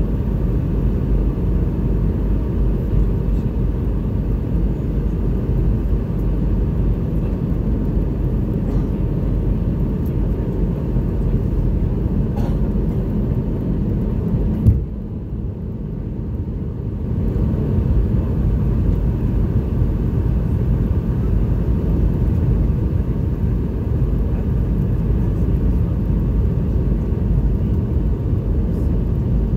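Steady low rumble of airflow and the rear-mounted Rolls-Royce BR715 turbofans inside the cabin of a Boeing 717 descending on approach. About halfway through there is a sharp knock, after which the sound goes duller for about two seconds.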